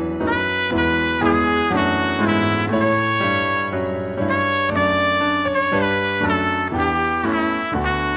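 Instrumental brass music, led by trumpet with lower brass underneath, playing a chordal tune at a steady pace over a held bass line.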